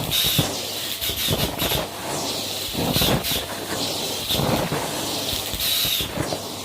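Close-miked crunching: irregular sharp, crackly crunches, several a second.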